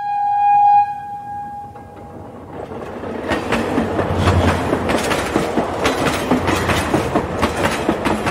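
A train horn sounds one steady note for about two seconds and fades. Then a passing train runs, growing louder, with its wheels clattering rhythmically over the rail joints.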